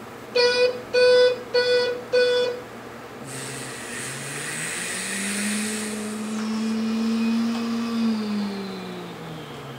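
Electronic light-and-sound module of a Bruder toy loader, triggered by a button on the cab roof: four short horn beeps, then a recorded engine sound that starts up, rises in pitch, holds steady and winds down near the end.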